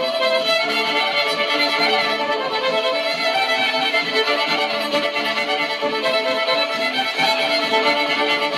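Two violins bowed together, playing a tune in unison-style practice with steady, continuous bowing and notes changing every second or so.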